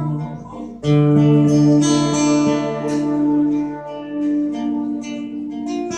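Live band music between sung lines: guitar-led chords ringing on, with a new chord struck loudly about a second in.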